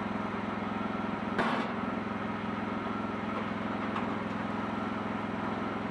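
Wood-Mizer portable sawmill's engine running steadily, with a single sharp knock about a second and a half in.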